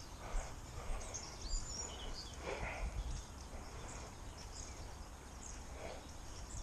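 Faint outdoor ambience: a few short, high bird chirps between about one and three seconds in, over a low rumble of wind and rustling.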